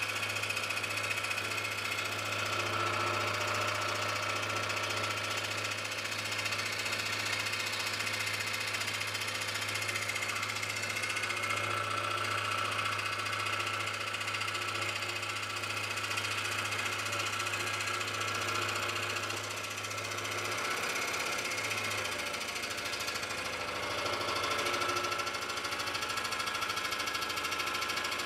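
Scroll saw running steadily, its fine blade cutting through a thin brass bar backed by plywood, with a low motor hum that drops away about two-thirds of the way through.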